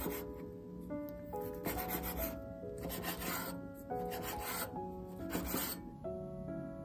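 Cleaver slicing through raw bacon onto a wooden cutting board: about six short slicing strokes, each about half a second, stopping about six seconds in.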